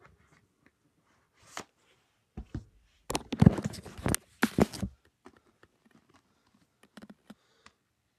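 Handling noises at close range: scattered small clicks and knocks, with a loud rustling, scraping stretch about three seconds in that lasts around two seconds.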